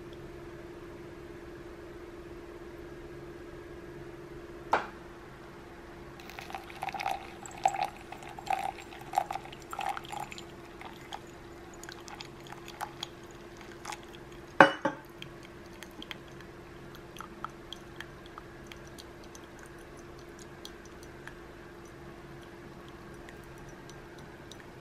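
Hot water poured into a paper drip-bag coffee filter over a mug, splashing and gurgling in spurts for about four seconds, then coffee dripping through into the mug in scattered soft ticks. Two sharp knocks, the louder one about halfway, and a steady low hum underneath.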